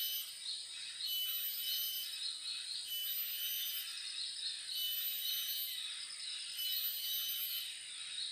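Outdoor chorus of insects and birds: high, steady trills that switch on and off about every one and a half seconds, over rapid repeated chirping.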